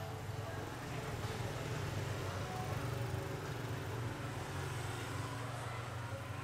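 A road vehicle passing: a low engine rumble that swells toward the middle and eases off toward the end.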